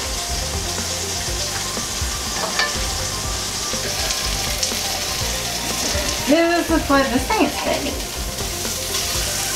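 Flour-dredged beef sizzling in hot coconut oil in a cast iron skillet, a steady frying hiss, while the meat is turned with tongs. A brief pitched sound rises and falls about six and a half seconds in.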